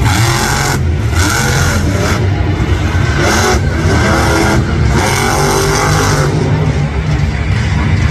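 Megalodon monster truck's supercharged V8 engine running loud and revving up and down several times as the truck drives across the dirt arena.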